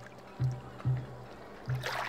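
Background music of a low drum beaten in pairs, like a heartbeat, with about a second and a quarter between pairs. A short hissing rush comes near the end.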